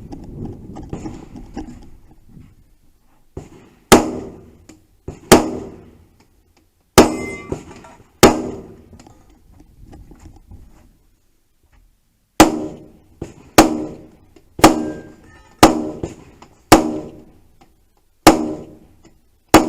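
Gunshots in a shooting-match stage, about a dozen, spaced roughly a second apart with a pause of about four seconds midway. Each shot is followed by a short ringing tail.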